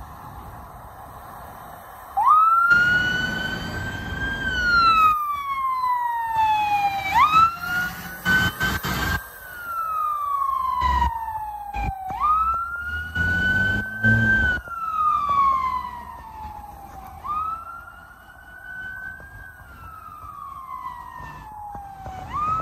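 Fire engine's siren sounding a wail that starts about two seconds in: each cycle rises quickly, then falls slowly over about four seconds, repeating roughly every five seconds. Louder rushes of the truck's engine and road noise come through as it drives by.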